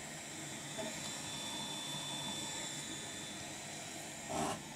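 Faint steady hiss of workshop background noise, with one brief louder sound near the end.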